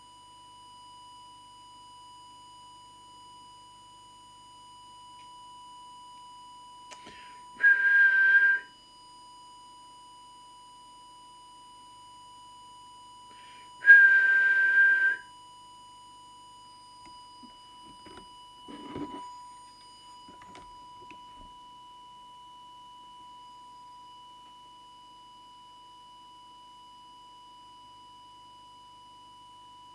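A steady, pure test tone from an audio oscillator, of the kind used to set an FM CB radio's deviation. Twice, about eight and fourteen seconds in, a louder, higher whistle with a rush of hiss sounds for about a second.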